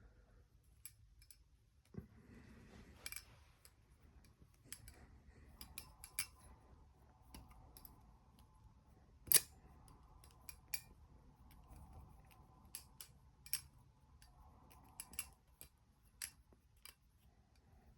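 Thomas Balisong Astra butterfly knife being flipped, its handles clicking and clacking shut against each other and the blade in quick, irregular strokes. The loudest clack comes about nine seconds in.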